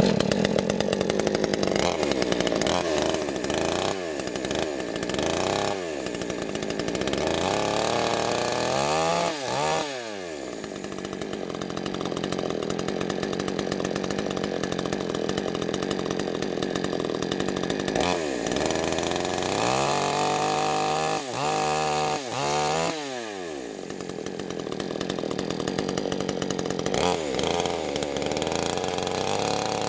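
Chainsaw running and cutting wood, its engine revving up and down several times.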